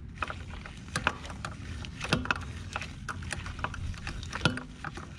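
Irregular clicks and taps of a hand tool on metal as fasteners at a car's brake master cylinder are worked loose, over a steady low hum.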